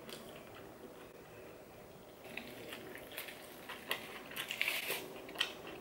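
Close-miked chewing of a mouthful of doner wrap: wet mouth clicks and smacks, faint at first and growing busier about two seconds in.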